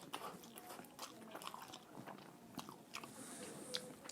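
Person eating in small bites close to the microphone: faint wet mouth clicks and chewing smacks, with a brief hiss about three seconds in.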